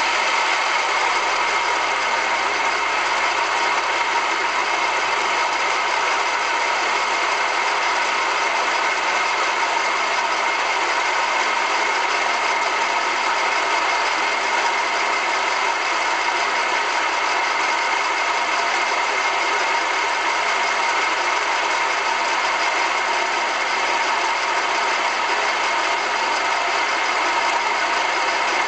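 2005 VW Polo 1.4 engine idling, with a steady high-pitched whine running over it. The noise persists after new drive belts, tensioners and a water pump, and the owner wonders whether it comes from the AC compressor.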